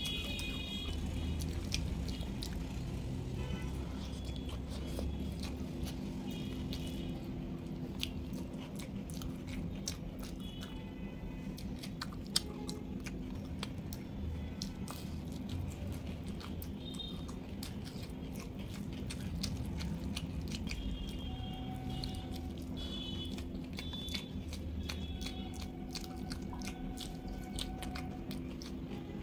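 Close-miked chewing and crunching of mouthfuls of rice mixed with cabbage and vegetables, eaten by hand, with many quick wet clicks and crunches. Soft background music with short high notes plays under it.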